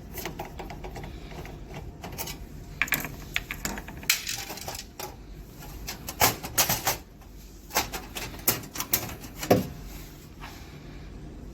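Hands working inside a Konica Minolta bizhub 300i copier: irregular sharp clicks, knocks and light clatter of its plastic and metal parts being handled during disassembly, with the loudest knocks near the middle.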